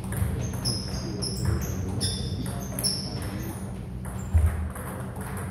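Table tennis rally: the ball clicks off the bats and the table in a quick, uneven run of sharp pings over a steady low hum. A dull low thump, the loudest sound, comes about four seconds in.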